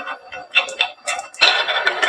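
Marbles clicking and clattering on a wooden marble run: a few scattered clicks, then a dense run of clatter about one and a half seconds in, with background music.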